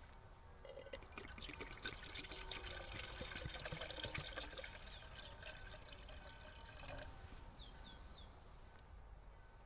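Water being poured, splashing and trickling for several seconds, followed by a few short, high, falling chirps near the end.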